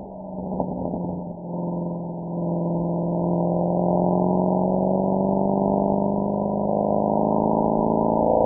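Mercedes-AMG SL63's V8 engine and exhaust under load while driving. The note dips and breaks up briefly in the first second or so, then holds a steady tone whose pitch climbs slowly as the revs rise.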